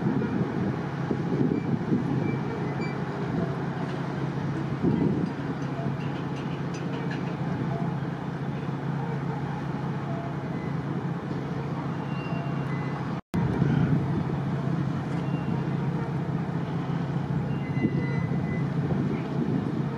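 Harbour tug's diesel engine running steadily under tow load, a low droning hum heard across the water. The sound cuts out briefly about two-thirds of the way through.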